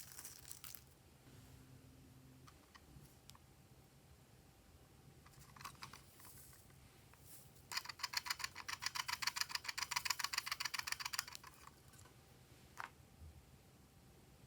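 Glossy slime being worked by hand: a few scattered soft clicks and crackles, then a quick run of sticky clicks and pops, about eight a second, lasting three and a half seconds from about eight seconds in.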